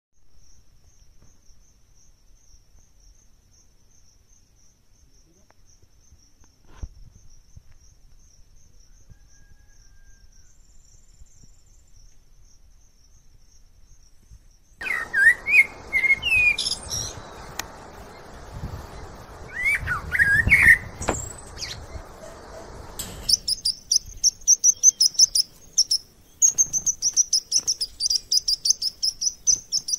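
Birds singing: a faint, high, steady trill at first, then about halfway in a few louder whistled calls over a light hiss, and in the last several seconds rapid, loud, high chirping several times a second.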